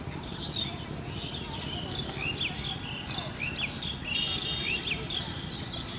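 Small birds chirping repeatedly in short, quick calls, with a brief buzzy call about four seconds in, over a steady low outdoor background noise.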